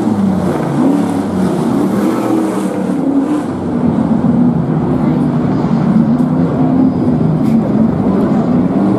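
Stadium Super Trucks' engines roaring and revving as the trucks race past, the pitch rising and falling throughout.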